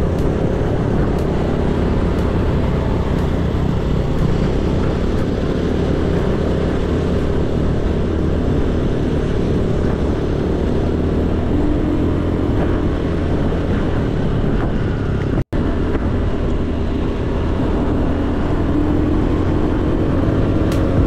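Small motorcycle engine running steadily at cruising speed, heard from the rider's seat with wind noise over it. The sound cuts out completely for an instant about fifteen seconds in.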